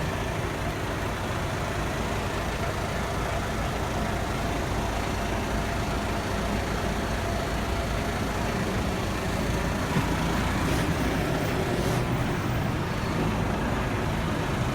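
Iveco Stralis 560's Cursor 13 straight-six diesel engine idling steadily.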